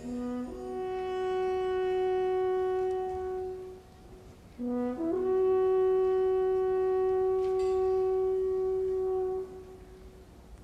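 A horn sounded twice. Each call jumps from a short low note up to a long held tone; the first lasts about three and a half seconds and the second about four and a half.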